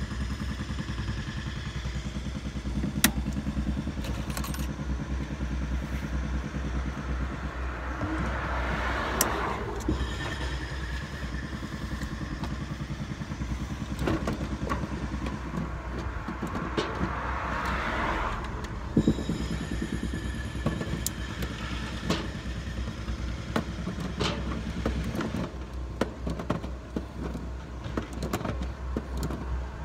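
A steady low motor drone, with scattered sharp metallic clicks and clatter from pliers squeezing spring hose clamps onto polypipe fittings. Two swells of rushing noise rise and fall about nine and eighteen seconds in.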